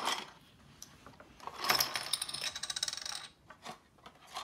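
Small plastic Re-ment miniature pieces rattling in a cardboard blind box and tumbling out onto a wooden tabletop: a quick clatter of light clicks about two seconds in, then a few lighter taps.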